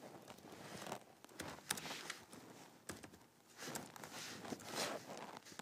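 Faint handling noise at a desk while a laptop is worked: several soft swells of rustling and a few sharp clicks.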